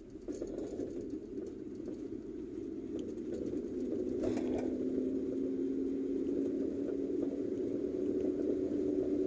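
Car engine and tyre noise heard from inside the cabin while driving. About four seconds in, an engine hum comes up and holds, rising slightly in pitch as it gets louder, with a brief sharp click just before it.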